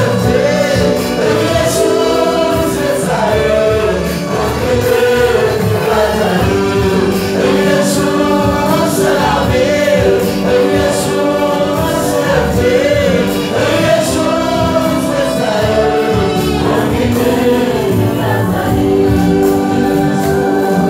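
Church choir singing an Amharic gospel song together with a lead singer on microphone, over held accompanying chords.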